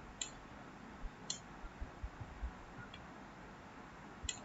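A few faint, sharp computer-mouse clicks, spaced about a second or more apart, with soft low knocks in between, as a drawing is selected and dragged on a digital whiteboard.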